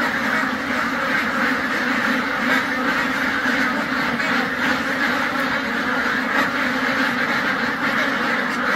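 A large flock of white domestic ducks quacking all at once: a dense, steady din of overlapping calls with no let-up.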